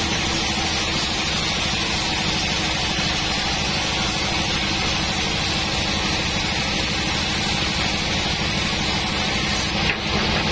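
Sawmill band saw running and ripping a teak beam on the log carriage: a steady mechanical din with a hiss from the cut. Near the end there is a brief knock and the high hiss falls away as the board comes off the blade.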